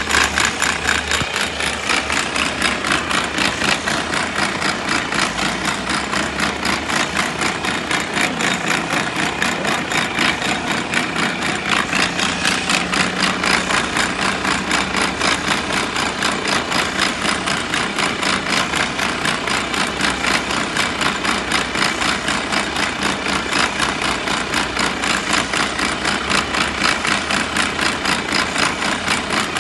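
Mercedes-Benz Arocs truck running at idle with a steady, rhythmic pulsing. This is the abnormal noise that the owner attributes to the gearbox.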